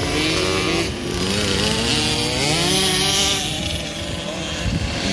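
Several kids' motocross bikes riding past, their small engines revving with a buzzing note. The pitch climbs as they accelerate, most clearly about two to three seconds in, then falls away.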